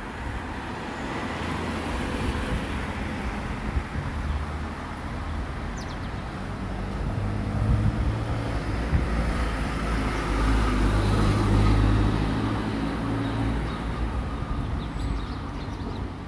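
Steady outdoor rumble like distant road traffic, swelling a little about eight seconds in and again near twelve seconds.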